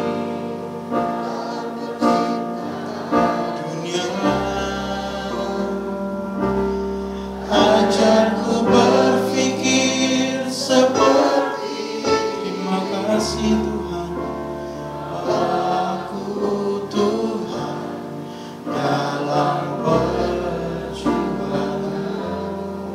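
Congregation singing a slow Indonesian worship song together, over long held low instrumental notes.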